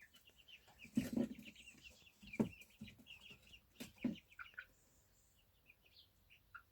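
Eight-week-old chickens clucking softly, with quick high chirps throughout and a few short louder clucks or knocks about one, two and a half, and four seconds in.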